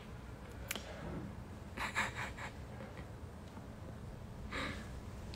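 Soft breathing sounds from a person in a quiet small room: a short cluster about two seconds in and another near the end, with a faint click under a second in.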